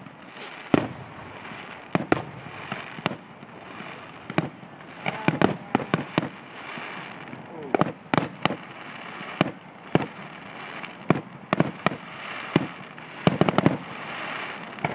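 Aerial fireworks shells bursting: sharp bangs every second or so, some in quick clusters of two or three, over a steady background hiss.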